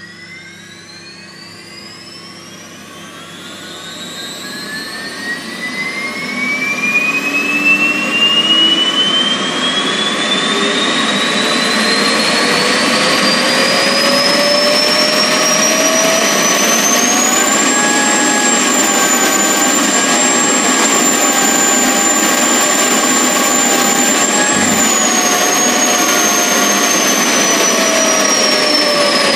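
Vacuum cleaner motor run from a high-voltage transformer, spinning up slowly with a whine that rises steadily in pitch for over fifteen seconds, then holds at a high steady whine, and begins to fall in pitch near the end as it slows.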